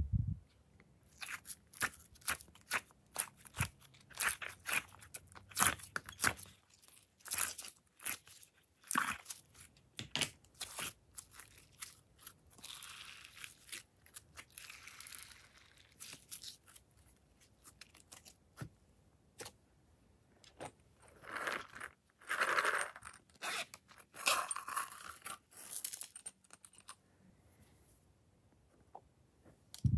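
Glossy slime being squeezed and stretched by hand: a quick run of sticky crackles and pops, with longer stretching sounds in the middle and again about two-thirds of the way through.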